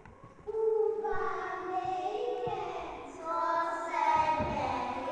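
Children singing a song in held, sung notes, starting about half a second in.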